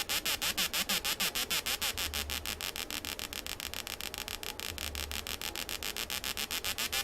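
Atari Punk Console, a homemade square-wave noise circuit, making a harsh electronic buzz chopped into fast even pulses, about ten a second, with sweeping pitches between them. A low drone swells and fades every two to three seconds.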